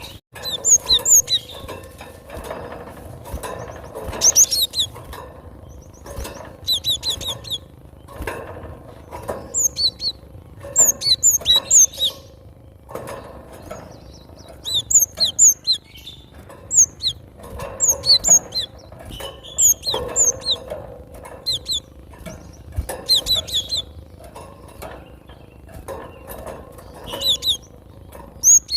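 Cinereous tit (gelatik batu) singing: short clusters of sharp, high notes repeated every second or two, over a faint steady hum.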